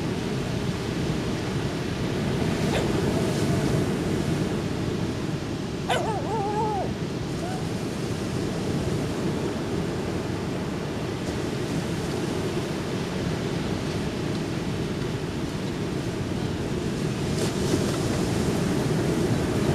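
Surf on a beach: a steady low rush of waves. About six seconds in, a short high wavering call cuts through briefly.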